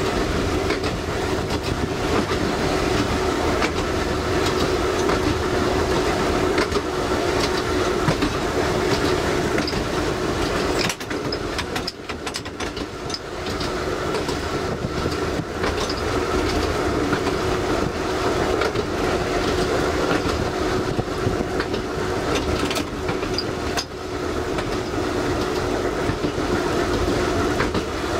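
Seaton Tramway's narrow-gauge (838 mm) electric tram running along the track, heard from the driver's cab: a steady motor hum over the rumble and clack of the wheels on the rails. It goes briefly quieter about eleven seconds in and again near the end.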